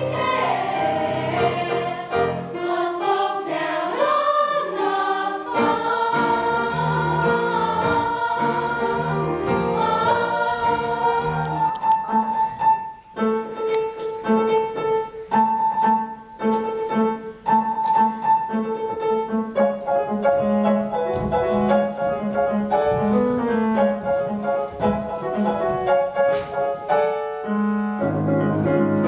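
Choir singing with piano accompaniment, with long held notes through the middle.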